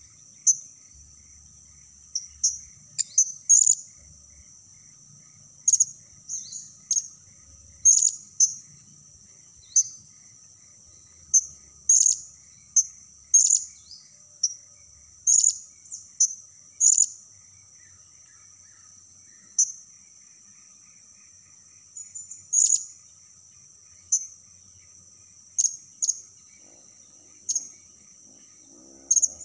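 Caged blue-crowned hanging parrot (serindit) giving short, shrill, very high single chirps, one every second or two, as a lure call to draw wild serindits. A steady high insect drone runs underneath.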